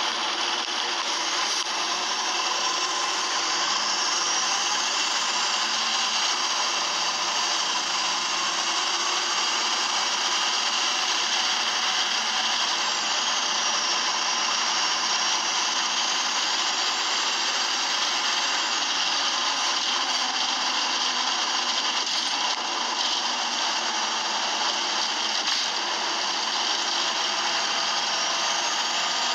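Engine and drivetrain noise inside a single-deck bus on the move: a steady, rough running noise with a faint high whine that rises and falls.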